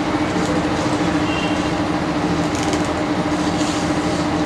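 Steady machine hum with a constant low tone, like a running room appliance. Faint scrapes come through as a knife shaves the thick ribs off a taro leaf.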